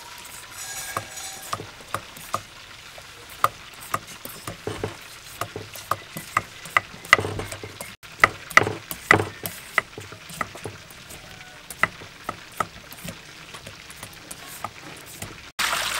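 A hand peeler shaving strips off a firm green papaya in quick, uneven strokes, each a short crisp scrape, with the strips dropping onto a wooden board. Near the end, water is poured rushing into a metal bowl.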